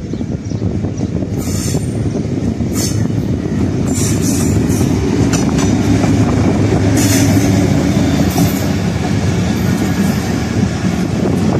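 Pakistan Railways HGMU-30 diesel-electric locomotive running past as it pulls into the station, its engine droning low, then its passenger coaches rolling by with wheels knocking over the rail joints. The sound builds to its loudest as the locomotive draws level, about halfway through.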